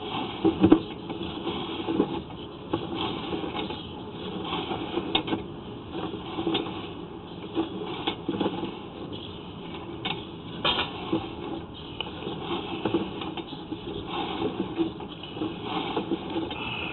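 Sewer inspection camera's push cable being fed down a drain line: an irregular patter of knocks and rubbing, with a sharper knock under a second in.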